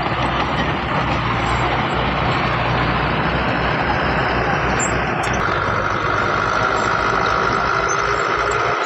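Heavy earthmoving machinery running steadily under load, with a dense rumble of large diesel engines. About midway a steady high-pitched whine joins in and holds.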